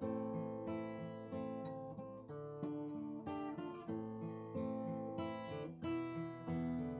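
Background music: acoustic guitar, plucked and strummed in a gentle, steady flow of notes.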